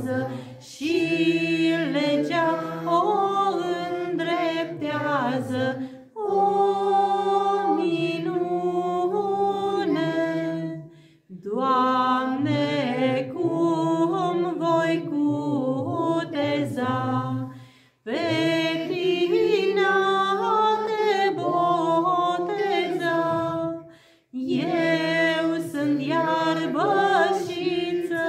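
A woman's voice singing a Romanian Orthodox Epiphany carol unaccompanied into a microphone, in phrases of about five to six seconds broken by short pauses for breath.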